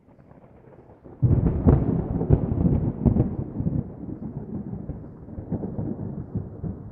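A loud, low, thunder-like rumble that swells suddenly about a second in, with irregular cracks through it, then slowly dies away. It sounds dull and muffled, with little treble.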